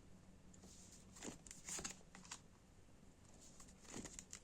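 Faint handling of a tarot deck being shuffled: a few soft card flicks and rustles, spaced out, with a small cluster near the end.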